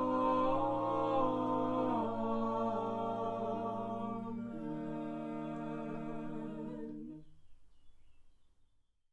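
A four-voice mixed vocal quartet singing unaccompanied: slow, held chords that change a few times, the last chord sustained and fading away about seven to eight seconds in.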